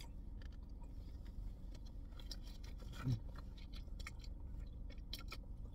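A person eating glass noodles close to the microphone: faint chewing with small wet mouth clicks, and a short voiced sound with a falling pitch about three seconds in.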